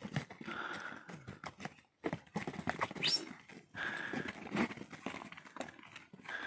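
Pack ponies walking over a rocky trail, their hooves clopping and knocking on stones in an uneven run of strikes. A short rising whistle sounds about three seconds in.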